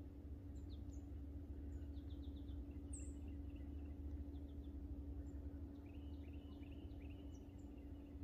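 Faint woodland ambience: small birds chirping and trilling now and then, with a run of about four quick calls near the end, over a steady low rumble and hum.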